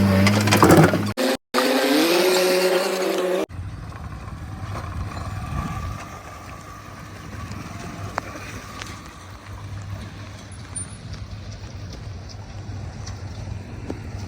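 A loud intro jingle with steady low tones and gliding notes, cut off sharply about three and a half seconds in, followed by the steady low rumble of heavy diesel machinery running at a worksite.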